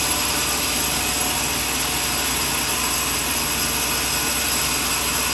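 Sawmill running with a loud, steady, unchanging machine noise.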